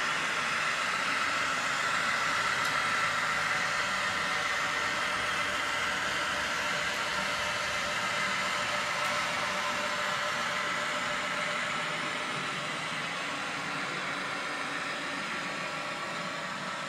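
A 'Kaluga' (TGK2) diesel shunting locomotive engine running steadily, with an even hiss over it.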